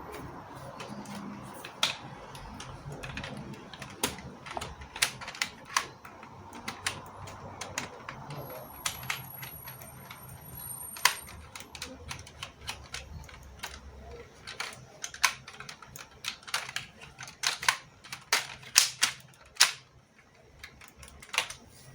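Irregular sharp clicks and clacks of LEGO Technic plastic parts being handled, a few a second and thicker near the end.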